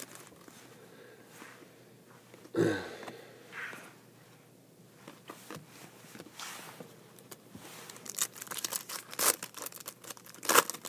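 Foil trading-card pack wrappers crinkling and being torn open, with cards handled in between; the crinkling gets denser and louder in the last few seconds.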